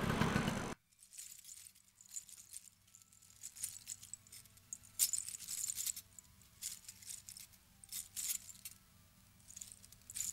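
Gold bangles and chains clinking and jingling in short, irregular bursts as they are handled on a tray. Before that, street noise cuts off abruptly under a second in.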